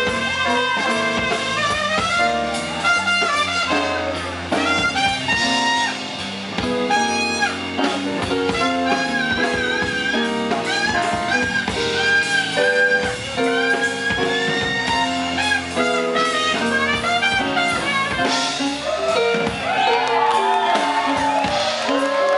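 Live New Orleans jazz band playing: a trumpet leads with runs of sustained notes over keyboard, electric bass and drum kit.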